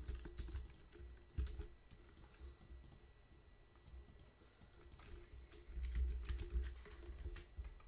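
Computer keyboard and mouse clicking: scattered, irregular clicks, denser about five to six and a half seconds in, as login details are typed into a web form.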